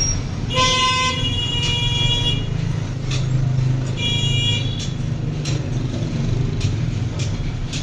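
A vehicle horn honks twice, a long blast about half a second in and a short one around four seconds, over a steady low rumble of traffic.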